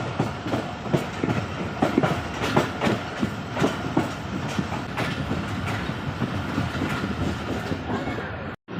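Moving train, its wheels clacking over the rail joints above a steady running rumble; the clacks are densest in the first half and thin out later.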